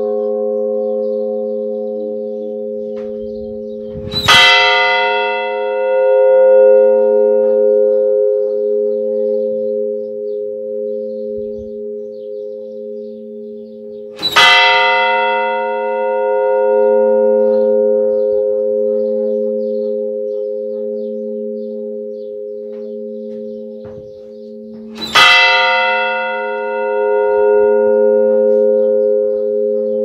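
Monastery church bell tolled slowly, struck three times about ten seconds apart. Each stroke rings on in a long, slowly fading tone over a low pulsing hum.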